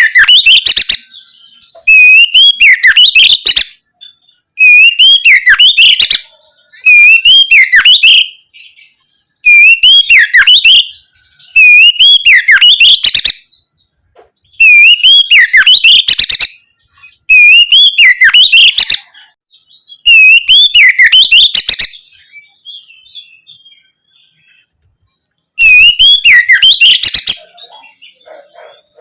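Oriental magpie-robin (kacer) singing loudly in repeated phrases, each a looping whistle followed by a fast harsh rattling run, coming about every two and a half seconds. The song breaks off for about three seconds near the end before one more phrase.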